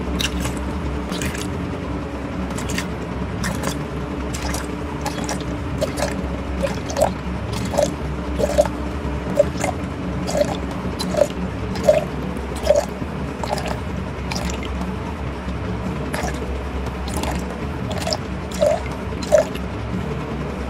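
Distilled water poured in a stream from a plastic bottle into a glass beaker. From about six seconds in there are short glugs roughly once a second as air gets back into the bottle.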